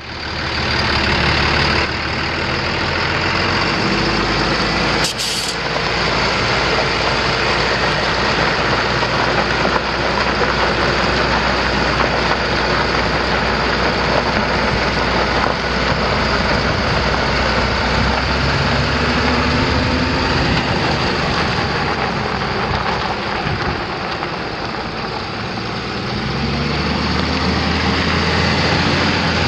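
A Capacity tandem-axle shunt truck's diesel engine running steadily as the truck is driven around. There is a short hiss of air from its air brake system about five seconds in, and the engine note rises a couple of times later on as it speeds up.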